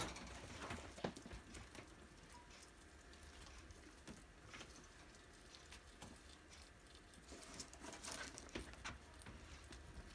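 Guinea pig eating leafy greens and carrot: faint, irregular crunching and nibbling clicks, with a few louder ticks about a second in and again near the end.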